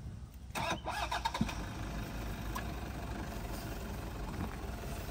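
An off-road SUV's engine running at low revs, a steady low rumble, with a short louder noise about half a second in.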